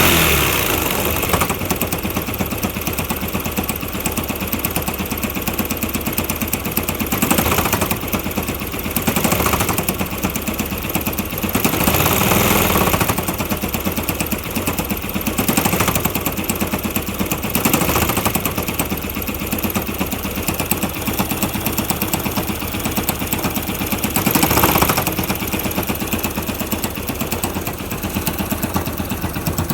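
Yamaha YBR125's single-cylinder four-stroke engine running at idle with a rapid, even knocking that the owner likens to a machine gun and cannot explain. A few brief louder swells rise and fall in the engine sound.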